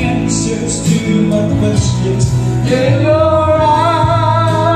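Background music: a song with a singing voice over a steady bass, holding one long note that wavers in pitch from about three seconds in.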